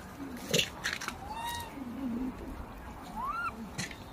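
Macaque calls: two short arched coos, the second rising and then falling in pitch. Between them come a few sharp clicks and some low wavering sounds.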